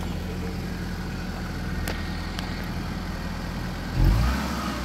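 Honda Accord's F22 2.2-litre four-cylinder engine idling steadily, then revved briefly near the end.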